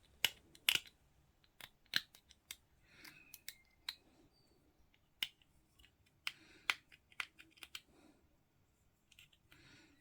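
Irregular sharp clicks and taps of hard plastic miniature parts being handled and fitted together, some coming in quick pairs, with faint rustling between them.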